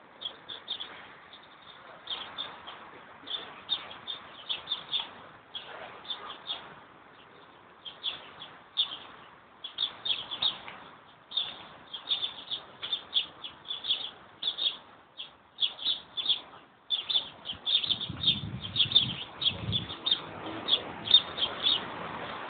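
Small birds chirping busily: many short, high chirps in quick clusters, with a low rumble near the end.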